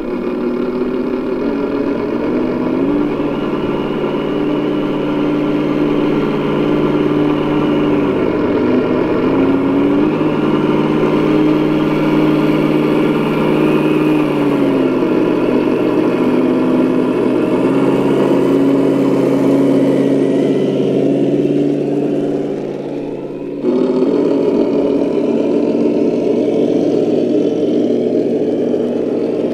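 Traxxas TRX-6 Mercedes-Benz G63 RC crawler's electric motor and gearbox whining as it crawls over gravel towing a loaded trailer, the pitch stepping up and down with the throttle. The sound drops briefly and comes back suddenly about 23 seconds in.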